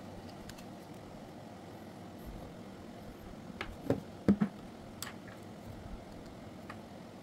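A few sharp clicks and knocks of small hard parts being handled, the loudest pair a little after four seconds in, over a steady low hum.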